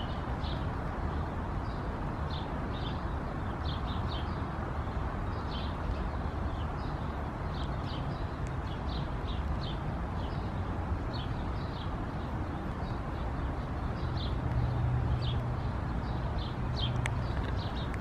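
Outdoor ambience: small birds chirping over and over in short high notes above a steady low background rumble, with a low hum swelling for a few seconds near the end.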